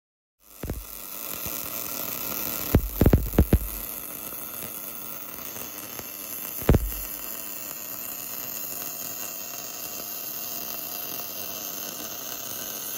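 Steady hissing noise of workshop machinery that starts suddenly, with a quick cluster of sharp knocks about three seconds in and one more knock near seven seconds.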